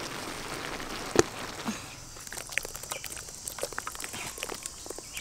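Sauce sizzling in a wok of fried fish and vegetables, with one sharp knock about a second in. About two seconds in the sizzling stops, leaving only scattered light ticks.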